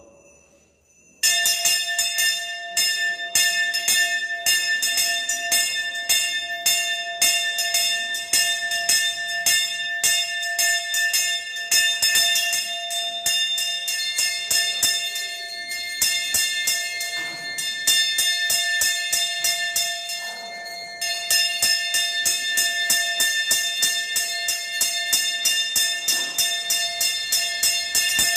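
Brass temple puja hand bell (ghanta) rung rapidly and without pause, its clapper striking many times a second over a steady ringing tone. It starts abruptly about a second in and slackens briefly about two-thirds of the way through before going on.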